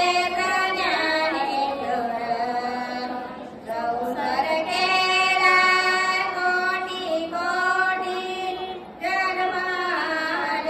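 Elderly woman singing a Marathi abhang (devotional song) into a hand-held microphone, in long held, wavering notes, breaking twice for breath.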